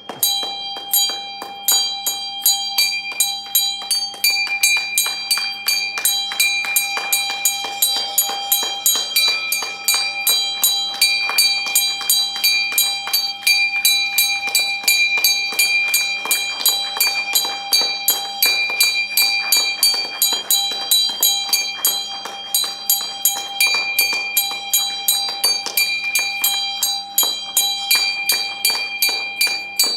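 A metal bell struck over and over in a steady rhythm, about two strikes a second, its ringing tones sustained between strikes.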